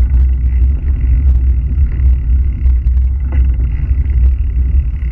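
Loud, steady wind rumble on the microphone of an action camera riding on a mountain bike, with faint ticks and rattle from the bike rolling over the gravel track.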